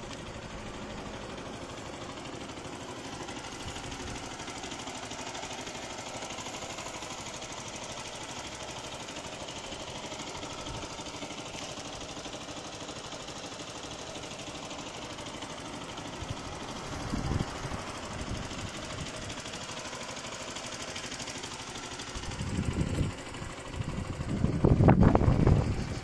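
Zontes GK 125 single-cylinder 125 cc motorcycle engine idling steadily, with a few louder bursts of sound near the end.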